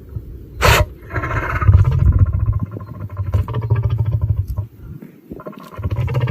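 A lion sneezes once, a short sharp burst less than a second in. A low, pulsing rumble runs through the rest, dropping away briefly near the end.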